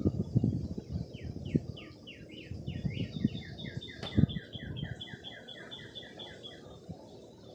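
A songbird sings a long, rapid series of repeated whistled notes: first quick down-slurred notes, then notes alternating between a higher and a lower pitch, about five seconds in all. Under it are low rumbles and bumps on the microphone, with a sharp knock about four seconds in.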